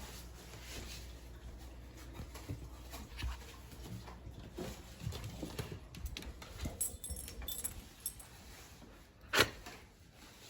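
A pet dog making small noises, possibly panting, with scattered light clicks and taps and one sharp click about nine seconds in.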